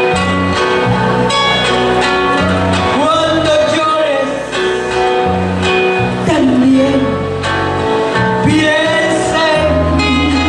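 A woman singing a song into a microphone over band accompaniment with a bass line.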